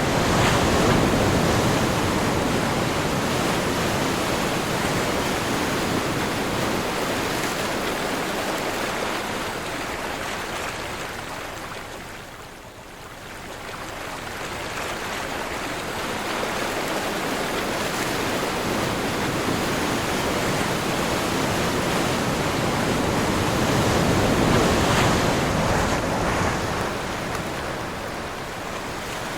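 Ocean surf in the wind: a wave rushes in, the wash fades to a lull about twelve seconds in, then a second wave builds and breaks near the end.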